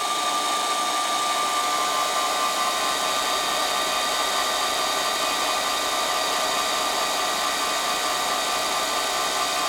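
Ceiling fan running at its highest speed: a steady whine of several fixed tones over an even rushing noise.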